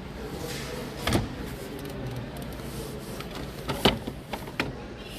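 Shop-floor background noise, a steady hum, with a few short sharp knocks or clicks: one about a second in and a quick cluster near the four-second mark.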